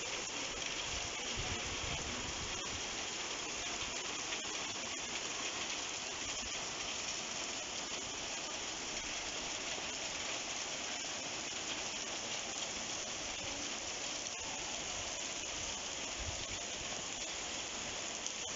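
Heavy rain pouring steadily onto a wet stone-paved street, an even hiss with no let-up.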